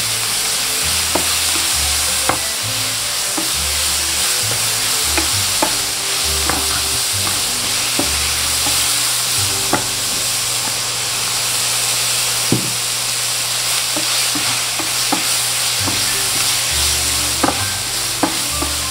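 Strips of chicken thigh sizzling as they sear in a very hot oiled pan, stirred with a wooden spatula that knocks and scrapes against the pan at irregular moments.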